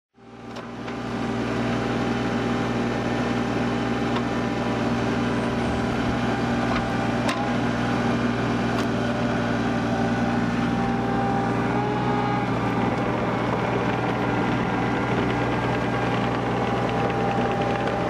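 Kubota mini excavator's diesel engine running steadily, fading in at the start, with a couple of sharp knocks midway.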